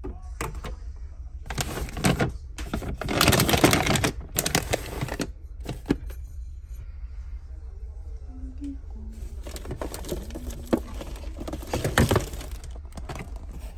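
Crinkly rustling and clicking of cat food packaging being handled: a bag of dry cat food and a box of plastic treat pouches. It comes in two spells, the louder from about two to five seconds in, the second around ten to twelve seconds in.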